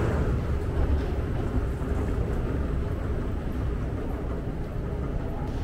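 Steady low rumble of airport terminal background noise, heard while walking along a concourse.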